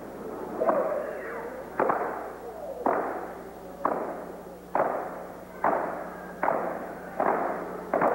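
Steppers hitting in unison, stomps and hand strikes, about eight sharp hits that come roughly once a second and get slightly faster. Each hit echoes in the gymnasium.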